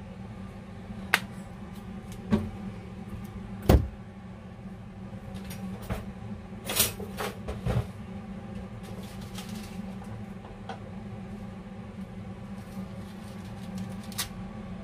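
A few sharp knocks and clicks of kitchen things being handled at the stove, the loudest about four seconds in and a short cluster of them a few seconds later, over a steady low hum.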